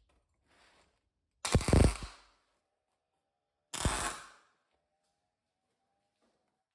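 Two short welding tacks, each a crackling burst of the arc lasting under a second, about two seconds apart, fixing a steel bracket in place.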